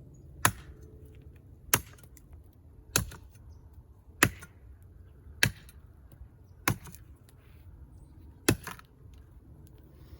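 Brush knife with a 13-inch 8670 tool-steel blade chopping into the trunk of a small tree, cutting the felling notch: seven sharp strikes about a second and a quarter apart, the last after a slightly longer pause.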